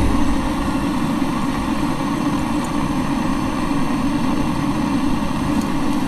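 Handheld butane torch burner burning steadily with a constant noise of gas and flame, its flame held to fire starter to light a small wood stove.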